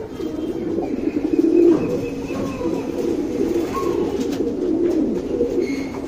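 Domestic tournament pigeons cooing in a steady, unbroken low warble.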